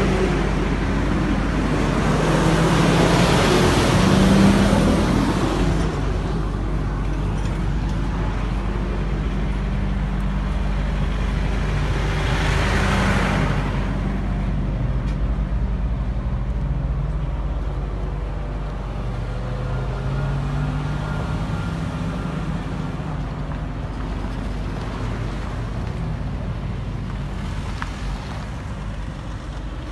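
Highway traffic: vehicles passing with an engine drone that rises and falls over a steady low rumble, swelling loudest about three seconds in and again around thirteen seconds.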